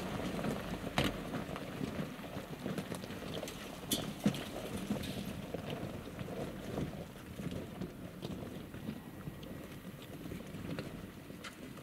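A Jeep crawling slowly over a loose-rock trail: a steady low engine and tyre noise, with scattered clicks and knocks of stones and gravel and some wind on the microphone.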